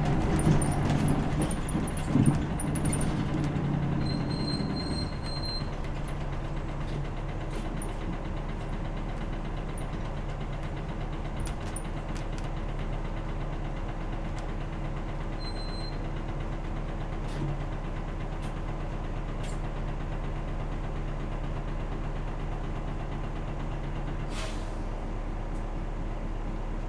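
Diesel engine of a 2001 city bus heard from inside the cabin: louder running with a single thump in the first few seconds, then idling steadily. Two short electronic beeps sound, and near the end there is a sharp hiss of released air, with one of the steady tones stopping at the same moment.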